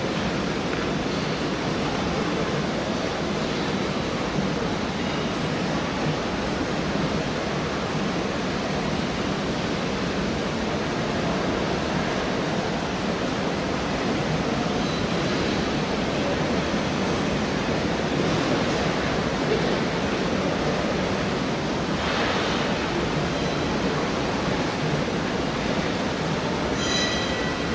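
Steady, even rushing noise with no clear pattern, and a brief high-pitched tone near the end.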